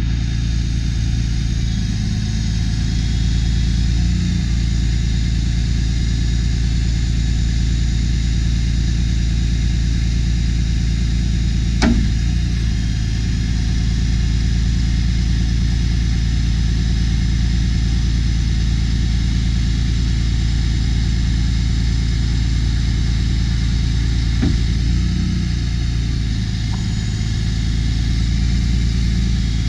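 The 2013 Ram 5500's 6.7-litre Cummins turbo-diesel straight-six runs steadily, driving the Altec boom's hydraulics while the bucket is raised and swung. There are two short metallic knocks, one about 12 seconds in and a fainter one about 24 seconds in.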